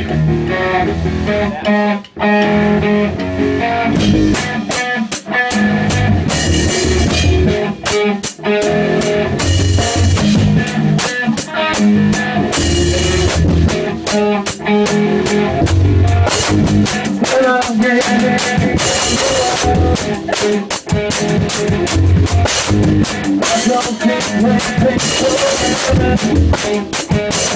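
Live rock music: a drum kit played hard with crash and ride cymbals, and a guitar playing alongside. The cymbals and drums come in fully about four seconds in.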